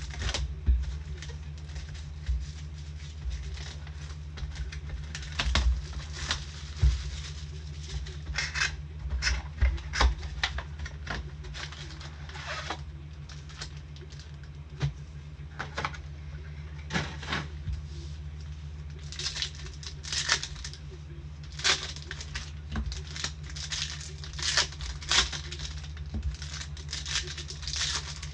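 Trading card packs being torn open and cards handled and flipped, a run of irregular crinkling, tearing and tapping sounds from wrappers and card stock, over a steady low hum.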